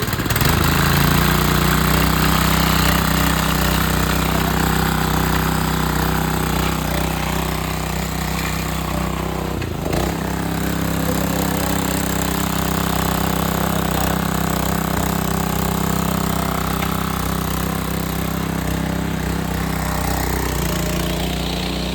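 Matsumoto MGP 40 portable fire pump's small engine running steadily, with a brief knock about halfway through after which its pitch shifts slightly.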